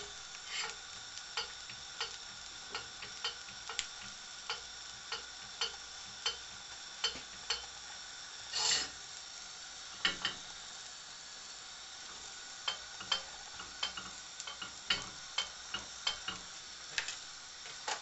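An omelet frying in a pan with a steady sizzle, while a table knife spreads a spread on slices of bread on a china plate, scraping and clicking against bread and plate about every half second. There is a longer, louder scrape about nine seconds in and another about ten seconds in.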